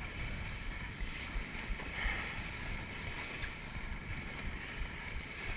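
Wind buffeting the microphone over the rush of water along the hull of a wooden log canoe sailing fast under canvas, a steady, noisy rumble and hiss.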